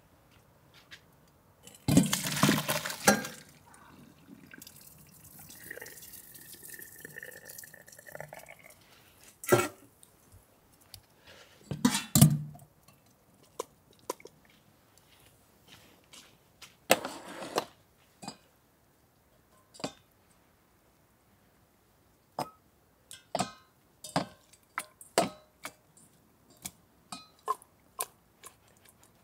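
Water handling in a metal pot at a steel sink: two loud splashes and pours near the start and about twelve seconds in, with tap water running between them, as blanched wild shoots are rinsed and drained. Later comes a run of light clinks and knocks of dishes and utensils.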